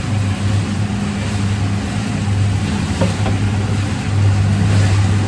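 Boat engine running steadily under way, with a rushing wash of wind and water over it. It gets a little louder about four seconds in.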